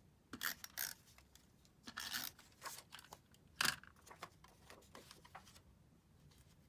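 Cardstock being handled and pressed together as the top sheet is attached to the card base: a run of short, crisp paper rustles and crinkles, the sharpest one a little past halfway, dying down to faint handling sounds for the last second or so.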